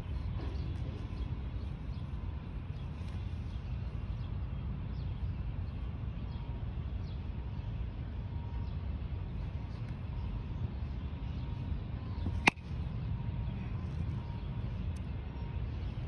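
A metal baseball bat hits a pitched ball once, a sharp ping about three-quarters of the way in, over a steady low rumble.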